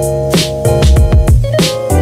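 Background music with a steady drum beat over sustained bass and held notes.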